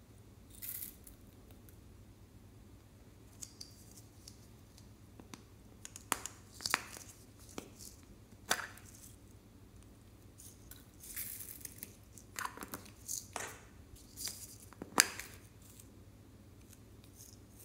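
Hollow plastic capsule balls being handled and pulled open, giving a scattering of sharp clicks and snaps with a few short rustles, the loudest snap near the end.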